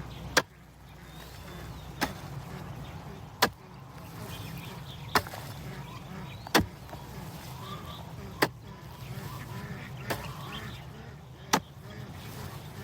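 A hand digging tool, such as a hoe, striking into the ground in a steady rhythm: eight sharp strikes, about one every second and a half to two seconds, over a steady low rumble.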